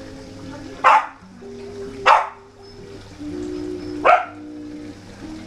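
Welsh corgi barking three times, single sharp barks about a second or two apart, over background music with sustained notes.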